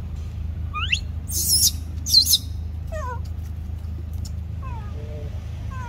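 Newborn macaque crying: short calls that slide up and down in pitch, with two loud, shrill screams between about one and two and a half seconds in.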